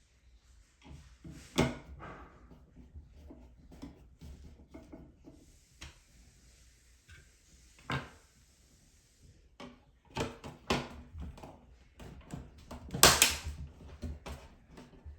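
Irregular clicks and knocks from handling and fitting a GFCI outlet, with the loudest knock near the end.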